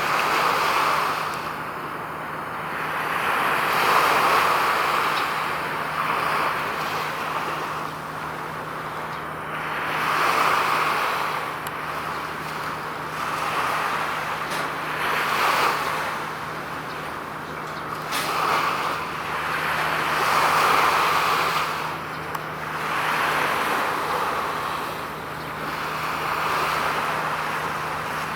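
Road traffic passing: vehicles go by one after another, the noise swelling and fading every few seconds over a steady low hum.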